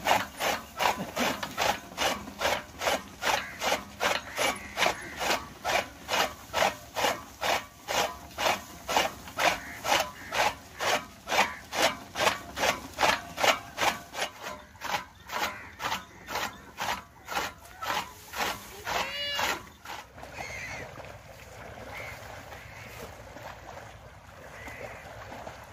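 Bull-driven flywheel chaff cutter chopping fodder stalks, a regular chop about twice a second. The chopping stops about 20 seconds in, leaving only a faint steady background.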